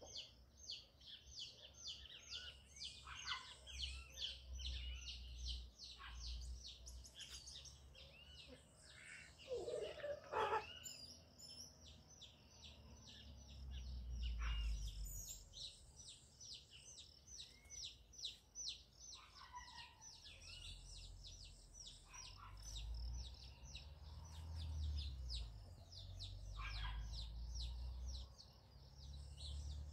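Small forest birds chirping without a break, a fast run of short, high, falling notes about four a second, with a few lower calls standing out, the loudest about ten seconds in. A low rumble comes and goes beneath it.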